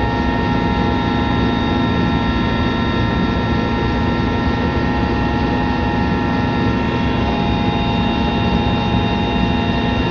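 Helicopter in flight heard from inside its cabin: a loud, steady drone of rotor and engine noise with several steady whining tones over it.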